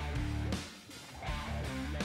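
Guitar-led background music with a steady beat, briefly quieter a little past halfway.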